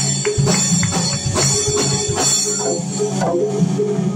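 A live band playing: electric guitar, bass guitar and drum kit, with congas hand-drummed over a steady groove.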